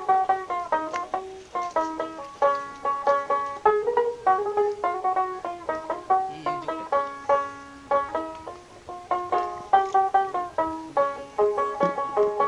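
Background music: a quick plucked-string melody with a banjo sound, several notes a second.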